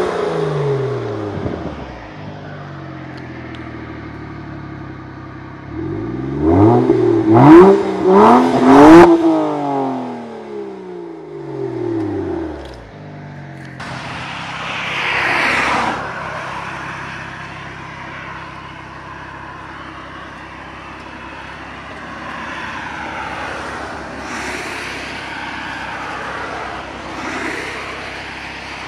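BMW E92 335i twin-turbo inline-six with a BMW Performance exhaust, idling and then revved in several quick blips that fall back to idle. Later a broad whoosh rises and falls once, then the engine idles steadily.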